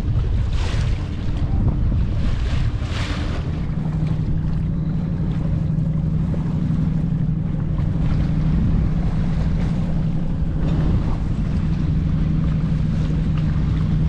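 Wind buffeting the microphone and choppy water splashing against a sailboat's hull, with a few louder splashes early on. A steady low hum sets in about three seconds in.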